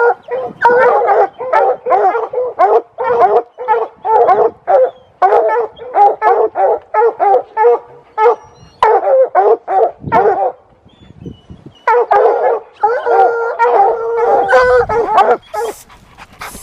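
Hunting hound baying at a mountain lion treed above it, in quick, repeated barks, two or three a second. It pauses about eleven seconds in, then gives longer drawn-out bawls.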